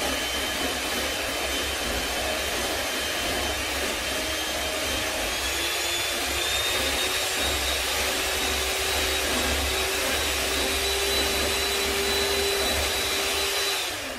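Electric hand mixer running steadily, its beaters whisking a creamy mixture in a plastic jug. The motor's whine rises slightly in pitch about five seconds in, and the mixer switches off just before the end.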